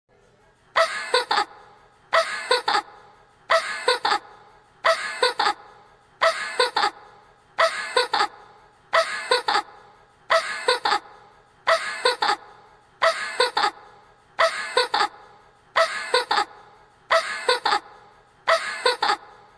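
A short laugh sound effect in a young girl's cartoon voice, looped: the same brief laugh repeats about every one and a half seconds, around fourteen times, starting just under a second in.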